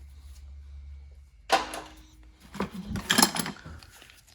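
Metal tools clattering as they are handled and set down: a sharp knock about a second and a half in, then a run of clacks and rattles near three seconds.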